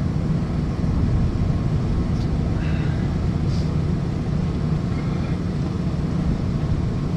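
Steady low rumble of a running vehicle, with a few faint brief sounds about two to three and a half seconds in.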